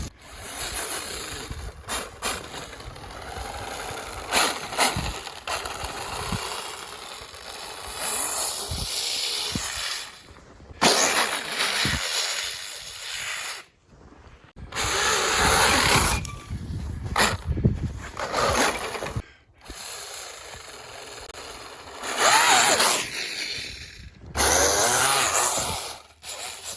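Brushless electric motor of a Tekin-powered RC snowmobile whining in repeated bursts as the throttle is opened and let off, rising and falling in pitch, with several short breaks where it drops away.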